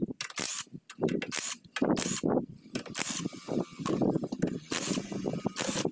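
Cordless impact wrench running in several short rattling bursts as bolts on a kuliglig hand tractor's gearbox housing are worked.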